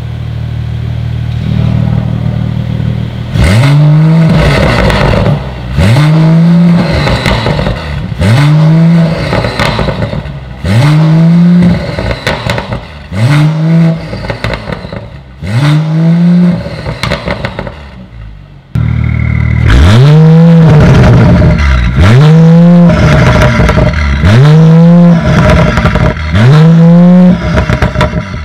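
Mercedes-AMG CLS53's turbocharged 3.0-litre inline-six idling through a Fi valvetronic cat-back exhaust with its valves open. After about three seconds it is blipped to short revs roughly every two seconds, about a dozen times, each rev rising in pitch and falling back to idle.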